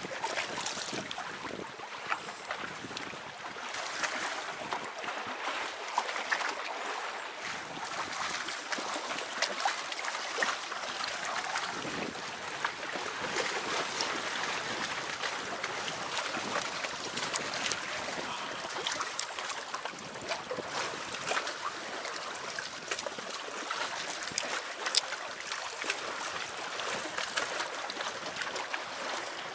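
Small waves lapping and trickling against the hull of an inflatable packraft, a steady watery splashing with scattered light ticks.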